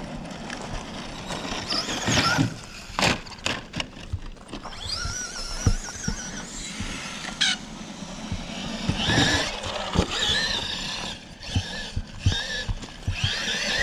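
Electric motor of a radio-controlled Traxxas truck whining, its pitch rising and falling several times as it speeds up and slows. Scattered sharp knocks as the truck bounces over the ground.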